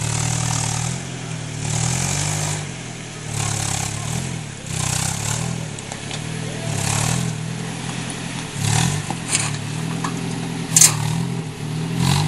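Suzuki Samurai 4x4's engine revving in repeated surges as it crawls over rutted ground, with a single sharp knock near the end.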